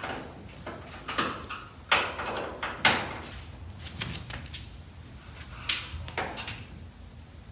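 1965 VW Beetle steel door being worked open and shut on its hinges: a series of clunks and clicks from the latch and hinges, the loudest about two and three seconds in. The door is still out of adjustment, its original seals dry-rotted.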